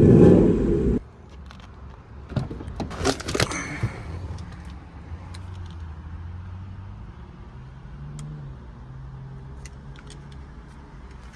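A loud low rumble that cuts off suddenly about a second in, then a short cluster of clicks and rattles around the third second, like keys and handling noise, before a quiet car cabin with a faint steady low hum.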